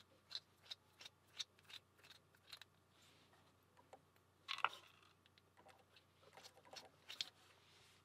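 Small, sharp metal clicks from a challenge-lock padlock being worked with a key and a thin tool as it is taken apart: a quick row of light clicks about three a second, a louder brief rattle about halfway through, and a few more clicks near the end.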